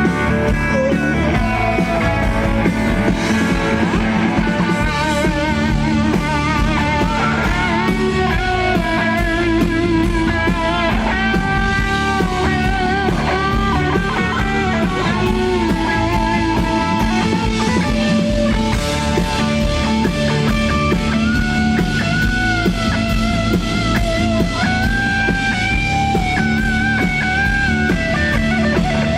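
Rock music played loudly: electric guitar to the fore with drums behind, a band running through a song at a sound check.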